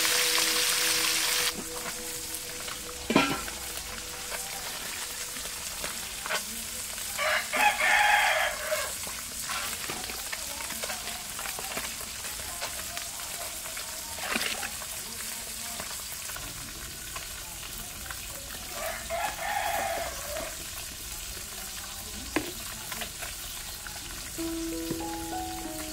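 Small fish frying in hot oil in a wok: a loud steady sizzle that cuts off after about a second and a half. Then a quieter stretch with a few sharp knocks, the loudest a few seconds in, and a rooster crowing twice. Music starts near the end.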